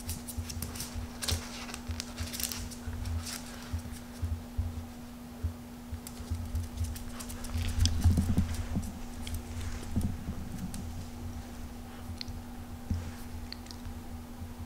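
A Yorkshire terrier's paws and claws pattering and clicking on a hard floor as it scampers and pounces, with soft thumps, the busiest and loudest about eight seconds in.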